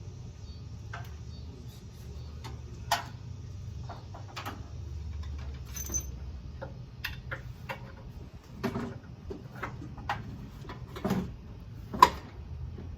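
Scattered metal clicks and clanks of hand work on an engine mount during an engine swap, the sharpest knocks about three seconds in and near the end, over a steady low hum.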